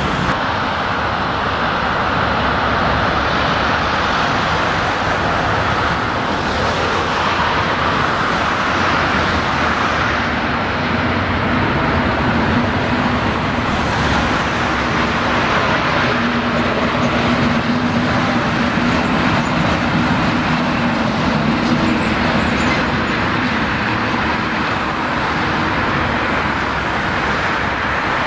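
Diesel shunting locomotive running as it moves along the track, with a steady engine hum that is strongest in the middle stretch, over a constant outdoor rumble.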